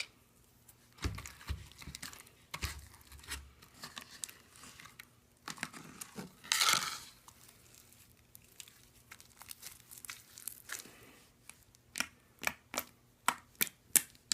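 Hands kneading and pulling borax-activated glue slime: irregular sticky crackles and small pops, with a longer tearing sound about six and a half seconds in and a quick run of sharp pops near the end. The slime is firm and not stretchy.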